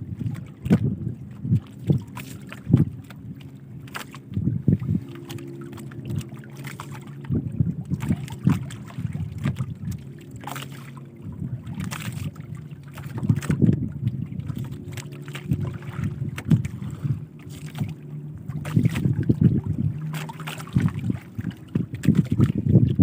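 Small boat on the water: a steady low hum under irregular knocks and splashes.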